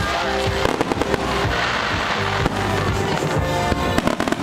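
Fireworks bursting over music, with a quick run of sharp crackling reports near the end.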